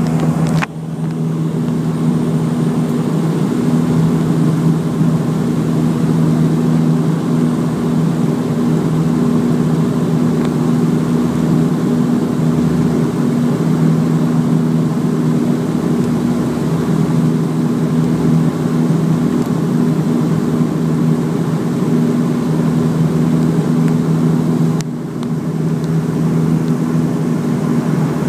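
Propeller aircraft's engines running steadily, heard inside the cabin: a loud, even hum with a constant hiss over it. The sound dips sharply for a moment just under a second in and drops a little in level about 25 seconds in.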